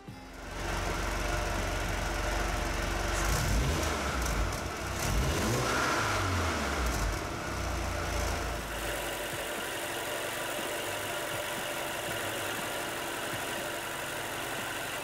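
Mercedes-AMG GLB 35's 2.0-litre turbocharged inline-four running, revved in a series of quick rises and falls through the middle, then settling to a steady idle.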